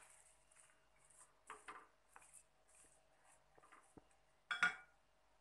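Silicone spatula stirring and scraping thick semolina halwa around a non-stick pan: a series of soft scrapes and light knocks, with a louder knock against the pan near the end.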